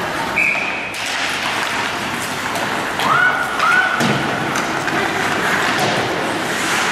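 Ice hockey game sounds in a rink: skates scraping the ice, sharp stick and puck knocks, and a thud against the boards, with two short high calls about three seconds in.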